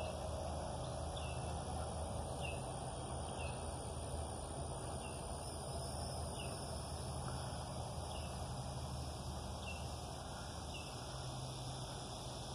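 Outdoor ambience: a steady insect drone, with a bird's short falling chirp repeated about once a second.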